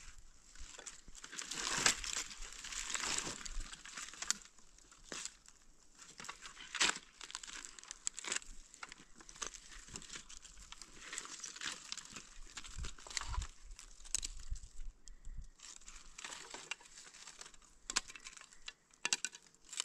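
Dry firewood sticks rustling, clicking and crackling as a strapped bundle of firewood is shifted and hoisted onto a person's back, with scattered crunches of stony ground. The rustling is densest about two to four seconds in.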